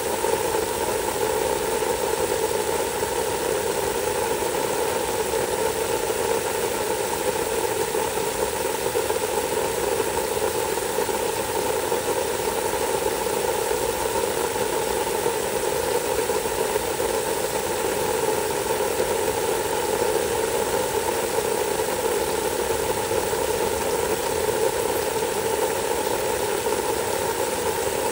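Garden hose spraying a steady stream of water onto soaked wood mulch, an unbroken even spray.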